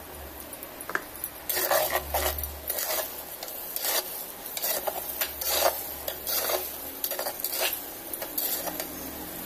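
Metal spatula scraping and stirring onions and paste frying in oil in an earthenware pot, with a light sizzle. A run of irregular scrapes starts about a second and a half in.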